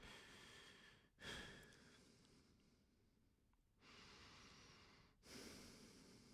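A person breathing slowly and deeply, in and out, quietly, with about four long breath sounds separated by short pauses.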